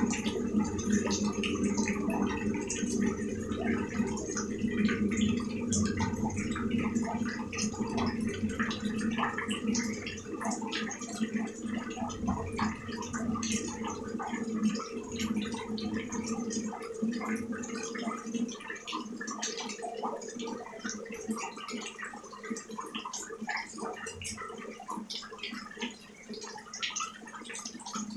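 Rain falling and splashing on a wet surface, a dense patter of individual drops. A low steady sound underneath fades away about two-thirds of the way through, leaving mostly the drops.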